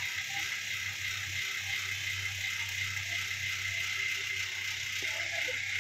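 Steady hiss with a faint high whine over a low hum, and a few faint soft pops from thick gravy simmering in the pan.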